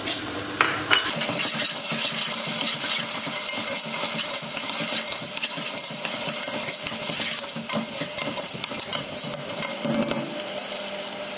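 Onions and ginger-garlic paste frying in oil in a stainless steel pot, sizzling while a metal spoon stirs and scrapes against the pot, with many quick clinks of metal on metal.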